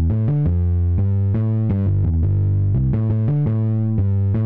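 Music: a distorted electric guitar and bass playing a riff, the notes changing several times a second over a heavy bass line.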